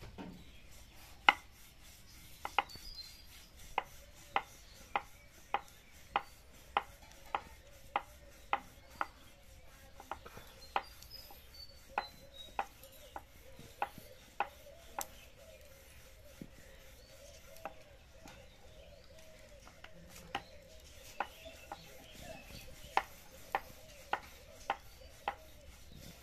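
A wooden rolling pin rolling out a stuffed paratha on a round rolling board, with a sharp knock at each back-and-forth stroke, a little under two a second. The knocking pauses for a few seconds in the middle, then starts again.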